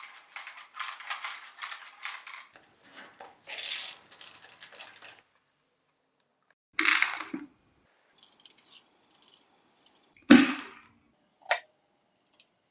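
Irregular clicking and clattering of hard objects, then a few separate sharp bangs about seven and ten seconds in, with a shorter one soon after.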